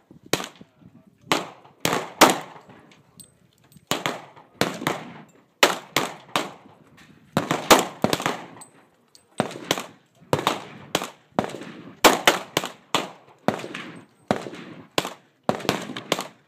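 Ruger SR40c compact pistol in .40 S&W firing a long string of shots, in quick pairs and small groups with short pauses between them. Each shot is a sharp crack with a brief ringing tail.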